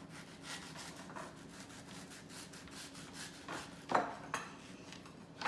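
A knife slicing through a mango on a cutting board: a run of short scraping strokes, with a couple of sharper knocks of the blade against the board, one about four seconds in and one near the end.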